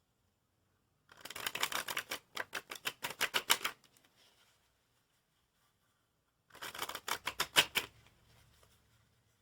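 A deck of playing cards riffled, a quick run of card-edge clicks. There are two runs, the first about two and a half seconds long and the second shorter, near the end.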